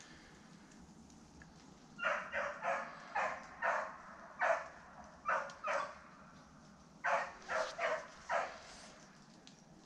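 Hunting dog barking in two quick runs, about eight barks then four more after a short pause: giving tongue as it pushes a rabbit during the hunt.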